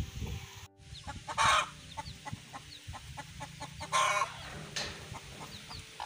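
Chickens clucking, with a few loud calls spaced over several seconds and faint high chick peeps between them.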